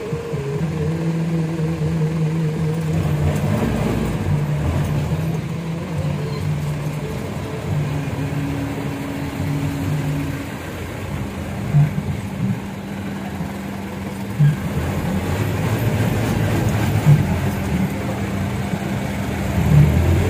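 A motor vehicle driving, its engine a steady low drone that shifts in pitch a few times, with four short knocks in the second half.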